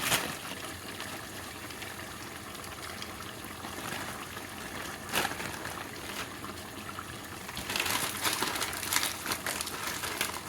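Food cooking in a pan on the stove: a steady hiss with dense crackling, busier near the end, and a sharp click about five seconds in.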